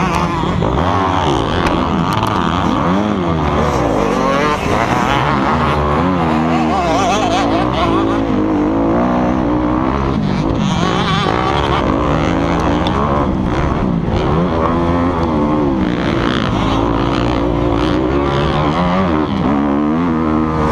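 Motocross bike engine heard from the rider's helmet camera, revving hard with its pitch rising and falling again and again as the throttle opens and closes and the gears change.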